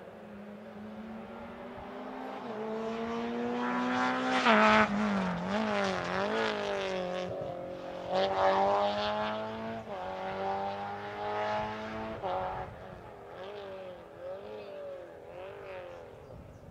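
Rally car engine approaching and passing, revving up and down through the gears. It is loudest about four to five seconds in and again around eight seconds, with the pitch climbing and then dropping sharply at each shift or lift. It then fades away, still rising and falling in shorter blips.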